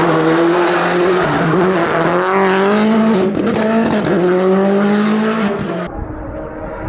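Hillclimb race car engine at high revs under full throttle, its pitch climbing and dropping twice as it shifts gears. About six seconds in it cuts off abruptly, leaving a duller low rumble.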